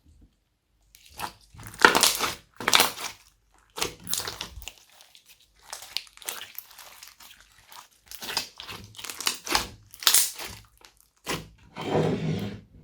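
Glossy slime being kneaded and squeezed by hand, making irregular bursts of sticky crackling and squishing sounds.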